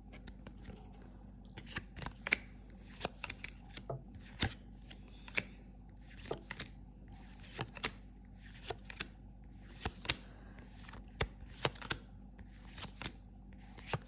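Paper trading cards handled in the hand, each card flicked and slid off the stack to reveal the next: short, sharp card snaps and rustles, irregular, roughly one every second.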